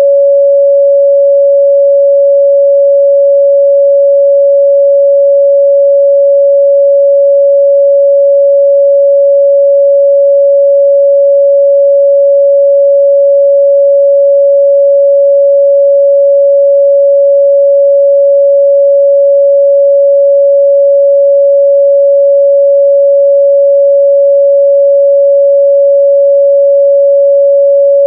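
A pure 561 Hz sine-wave test tone, held steady at one pitch and level, with no other sound.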